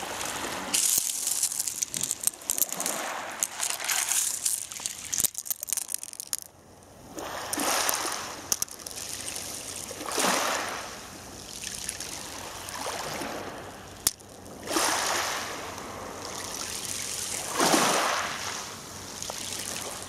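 Small sea waves lapping and washing over a pebble shore, swelling and drawing back every few seconds.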